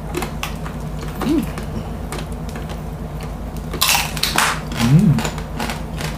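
Crispy roast suckling-pig (lechon) skin crackling as it is torn off by hand and chewed, with scattered sharp crackles and one louder crunch about four seconds in.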